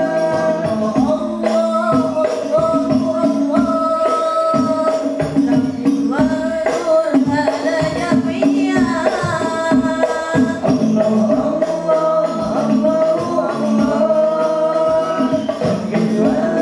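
A boy singing a sholawat melody solo into a microphone, backed by an Al-Banjari ensemble of frame drums (rebana) beating a dense, steady rhythm.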